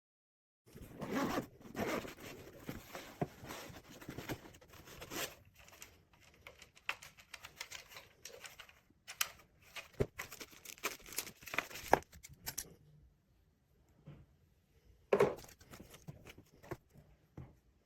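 Handling noise: irregular rustling, tearing and sharp clicks, busy for about twelve seconds, then quieter, with one more burst near the end.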